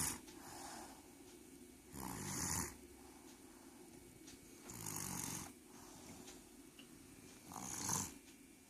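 Snoring in a regular rhythm: the tail of one snore at the start, then three more about two and a half to three seconds apart, each a low rasp with a breathy hiss.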